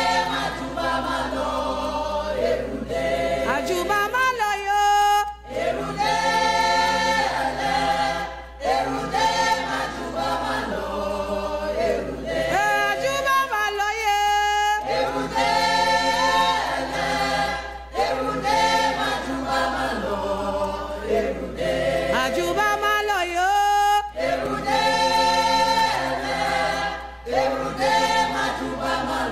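Background music: a choir singing unaccompanied, several voices in held chords moving phrase by phrase.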